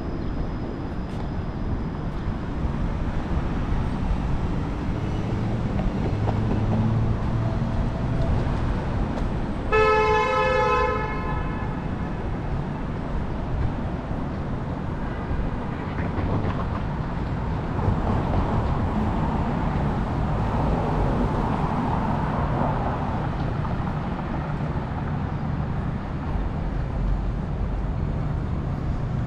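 Downtown street traffic running steadily, with a vehicle horn honking once for about a second, about ten seconds in.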